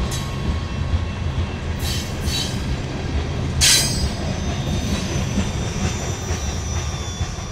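Freight train of hopper and grain cars rolling past: a steady low rumble of steel wheels on rail, with short, high-pitched wheel squeals about two seconds and three and a half seconds in.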